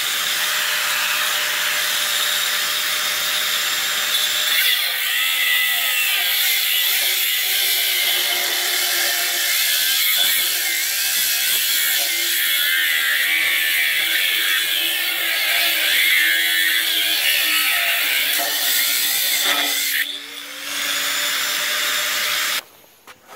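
Angle grinder with an abrasive cutting disc cutting through a steel I-beam, a loud steady grinding whine. It dips briefly about 20 seconds in, resumes, then stops abruptly near the end.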